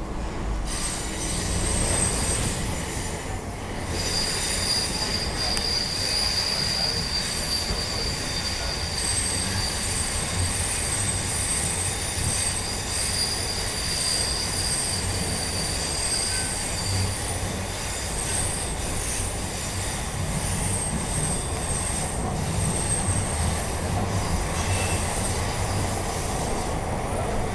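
Bombardier T1 subway train running through a tunnel, heard from inside the car. Under a steady low rumble, the wheels squeal in thin, high, steady tones for most of the stretch, fading out near the end.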